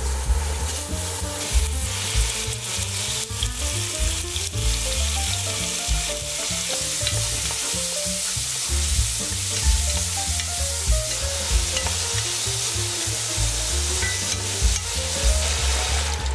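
Diced pork sizzling as it fries in sesame oil in a pot, stirred with a wooden spatula that scrapes and knocks against the pot.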